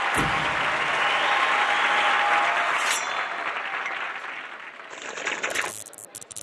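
Cartoon studio audience applauding, the clapping dying away over the middle of the stretch, followed by a few short sharp clicks near the end.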